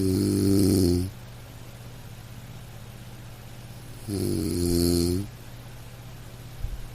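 Loud snoring: two long snores about four seconds apart, each lasting about a second, over a low steady hum, with a small knock near the end.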